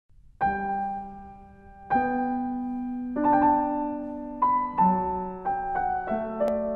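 Slow piano intro music: struck notes and chords that ring out and fade, one every second or so, coming a little faster near the end. A brief click sounds near the end.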